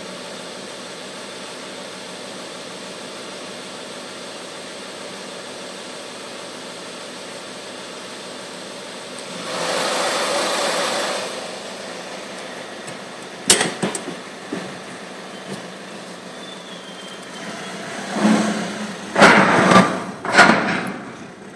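Car lift carrying a car, with a steady mechanical hum through the first half. Then comes a swell of noise lasting about two seconds, a sharp click, and several loud bursts near the end as the car moves off.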